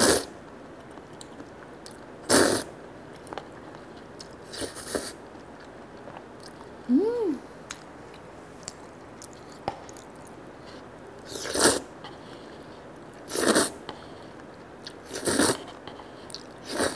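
A person slurping konjac noodles in black bean sauce: about six short slurps spaced a few seconds apart, with chewing between them. A short hum that rises and falls in pitch comes about seven seconds in.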